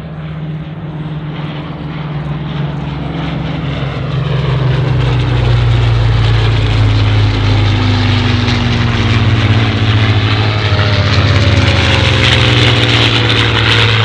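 WWII propeller fighters (Hurricane, Spitfire and P-51 Mustang) flying past with a steady engine drone. The drone grows louder about four seconds in and slides down in pitch as the aircraft pass.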